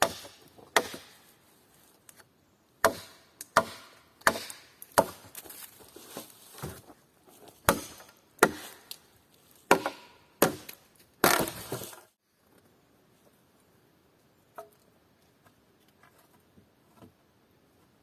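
Wood being chopped: about a dozen sharp blade strikes into wood in the first twelve seconds, irregularly spaced, the last one drawn out like a split. After that only a few faint taps.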